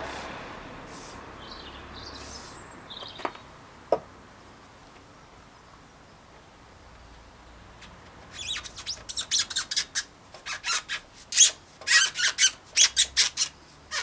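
A short spray hiss, then a rubber handlebar grip squeaking sharply, several short squeaks a second, as it is twisted and pushed onto the handlebar, starting about eight seconds in.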